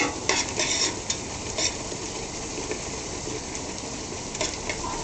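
Ground beef sizzling in a pot on the stove: a steady frying hiss, with a few short scrapes and knocks of a utensil against the pot.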